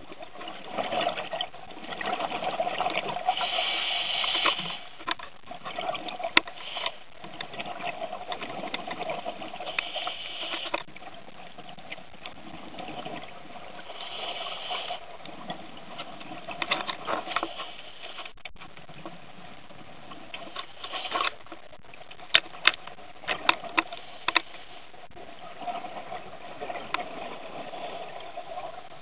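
Underwater sound picked up by a camera in a waterproof housing: bursts of rushing, bubbling water a few seconds apart over a hiss, with a run of sharp clicks and knocks past the middle.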